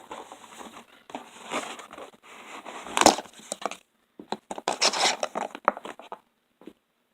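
Headset packaging rustling and crinkling as it is handled and unpacked, with scattered clicks and a sharp knock about three seconds in.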